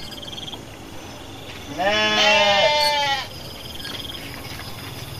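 A sheep bleating once, a loud wavering call about a second and a half long, starting about two seconds in.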